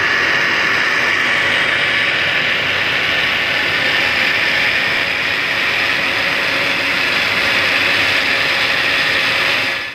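Countertop electric blender motor running steadily, blending a milk drink; it stops abruptly at the very end.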